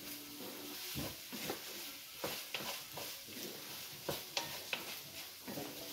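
Vegetables sautéing in olive oil in an enameled cast iron pan, sizzling softly while a wooden spatula stirs them, with scattered short clicks and scrapes against the pan.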